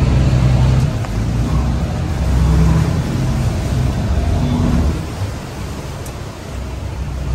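Motorboat engine running steadily at low speed, a low rumble.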